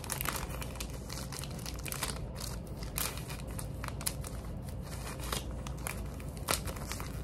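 Packaging crinkling and crackling in irregular bursts as the wrapper of a long swab from a COVID antigen self-test kit is handled and torn open, with a clear plastic bag also rustled near the end.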